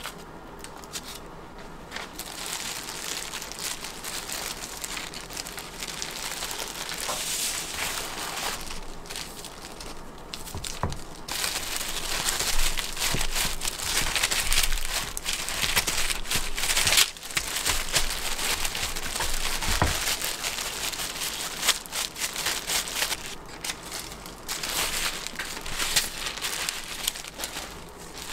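Plastic wrap and disposable plastic gloves crinkling and rustling as food is handled and rolled by hand, with a few soft knocks.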